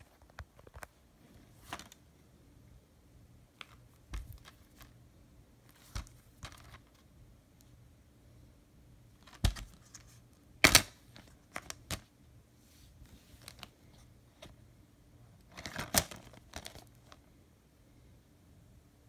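Plastic DVD and Blu-ray cases being handled: scattered clicks, taps and clatter as cases are picked up, set down and one is opened, with the sharpest clicks about ten and sixteen seconds in.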